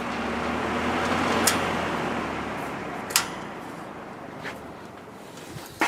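Air King V20E box fan with a GE two-speed reversible motor winding down: its air rush swells briefly, then fades steadily while the motor hum dies away, with a few sharp clicks along the way.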